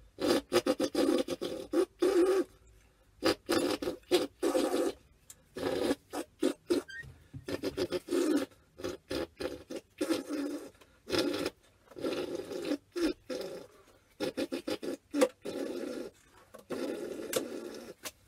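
A cut-off piece of rubber balloon blown through as a makeshift reed, buzzing in many short, irregular blasts with brief gaps between them.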